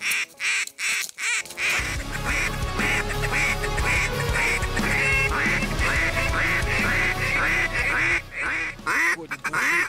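Mouth-blown duck call sounding a quick run of quacks, about two to three a second, to lure ducks in toward the blind. Background music plays under it, and a low rumble comes in about two seconds in.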